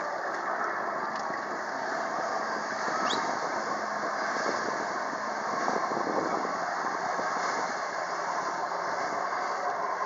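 Jet ski engine running steadily while it drives a flyboard through its hose, with the rush of the water jets.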